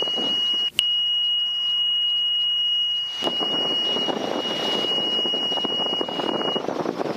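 A steady high-pitched warning tone in the headset audio of a Robinson helicopter, with a brief break about a second in. It is typical of the low rotor RPM warning horn as the rotor slows during the flare and touchdown of a practice autorotation. Muffled rotor and engine noise runs underneath.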